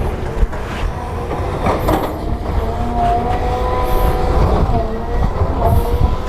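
Heavy tracked earthmoving machine working: a diesel engine runs steadily under load with clanking from the steel tracks and a thin whining tone over the low rumble.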